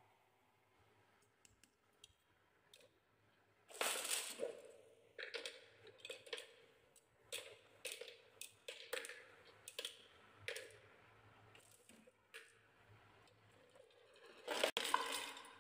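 Glass marbles clicking and knocking on a wooden marble run track, a string of separate knocks about two a second, each with a short ring. A louder clatter comes about four seconds in and another near the end.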